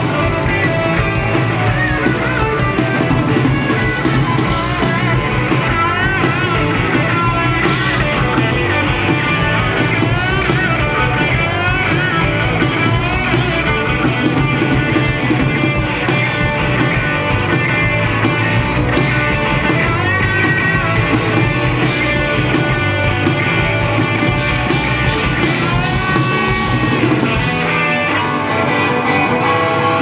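Live rock band playing loudly: bass guitar, electric guitar and drum kit.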